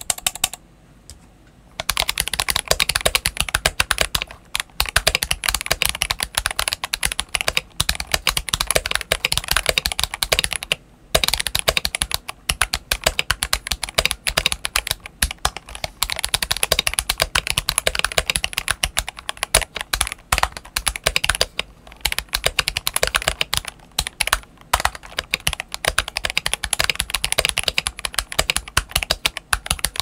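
Continuous typing on a Tester68 mechanical keyboard fitted with Akko Lavender tactile switches, tuned stabilizers and Drop DCX white-on-black keycaps. It is a fast, dense run of key clacks, with a short lull about a second in and a few brief pauses after that.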